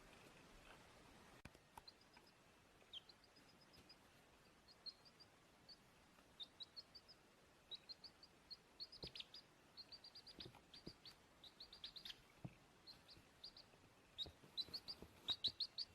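A baby chick peeping faintly in short, high cheeps that come faster and louder near the end.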